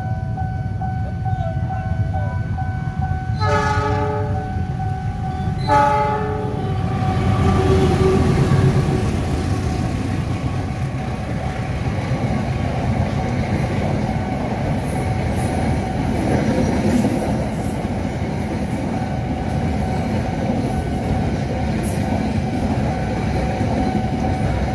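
Diesel locomotive horn sounding two short blasts a couple of seconds apart. Then a long passenger train passes close by with a steady rumble and wheel clatter on the rails, loudest a few seconds after the horn as the locomotive goes by.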